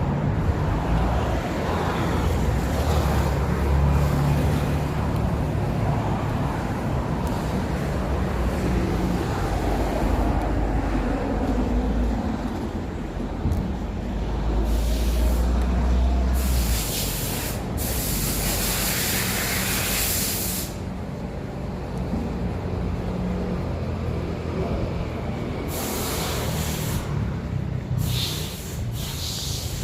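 City street traffic: vehicle engines with a steady low rumble, and hissing bursts about fifteen seconds in and again near the end.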